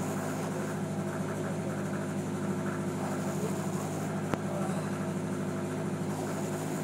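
An engine aboard a fishing boat running with a steady, even hum. There is a single sharp click about four seconds in.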